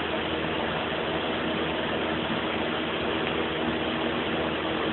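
Steady background hum and hiss with a faint, steady low tone running through it.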